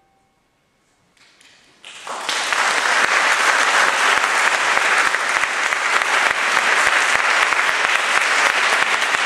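Audience applauding after a flute quartet's final note: a second of silence, a few first claps, then full, steady applause from about two seconds in.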